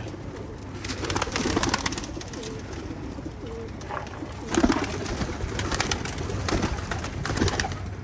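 Domestic pigeons cooing in a loft, several low coos with the loudest about halfway through, amid scattered short clatters.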